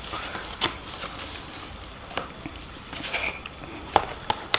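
A spoon stirring and scraping food on a plate, with a few short, sharp clinks of cutlery.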